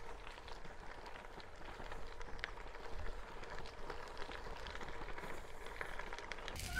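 Bicycle tyres rolling over a gravel trail: a steady crackling hiss with scattered small clicks and rattles. Music comes in near the end.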